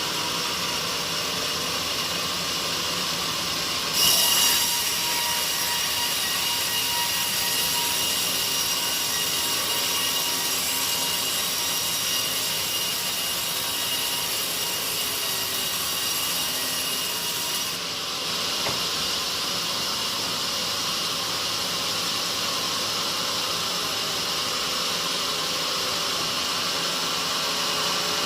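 Sawmill saw cutting through a teak log. The steady machine noise grows louder and harsher about four seconds in, eases slightly around eighteen seconds, and stays steady after that.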